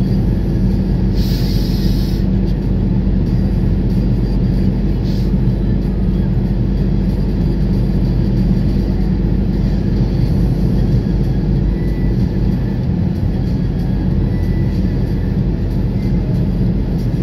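Car driving at road speed, heard from inside the cabin: a steady low drone of engine and tyre noise. A brief hiss comes about a second in.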